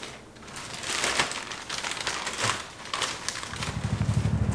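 A backpack being packed: bags and stuff sacks rustling and crinkling in irregular bursts. Near the end a low, fast-pulsing rumble comes in.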